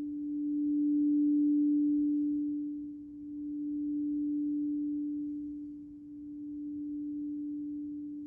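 Crystal singing bowl sustaining a single clear tone, swelling and ebbing slowly about every three seconds.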